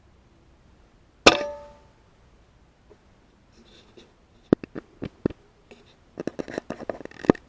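A single sharp air rifle shot about a second in, with a brief ringing tail. Later comes a scatter of sharp clicks, then a denser run of clicks and rattles near the end.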